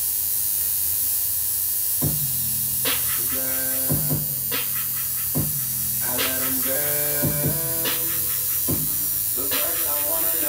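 Background music: pitched, plucked notes on a beat come in about two seconds in. Under it runs the steady electric buzz of a tattoo machine inking skin.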